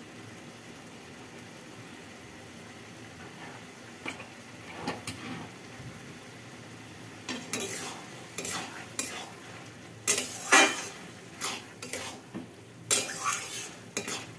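Metal spatula stirring and scraping thick bottle gourd curry around a metal kadai as it is cooked down until dry. The first faint strokes come about four seconds in, then louder, irregular scrapes from about seven seconds, over a low steady hiss from the pan.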